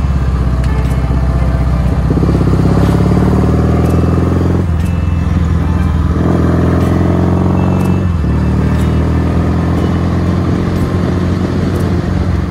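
Kawasaki W650 air-cooled parallel-twin engine running under way, its pitch climbing as the bike accelerates, with breaks in the sound for gear changes a few times.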